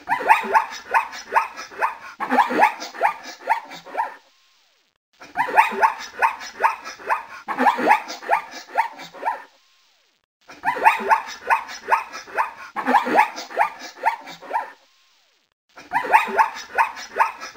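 A dog barking in quick series. A recording of about four seconds is played four times over, with about a second of silence between repeats.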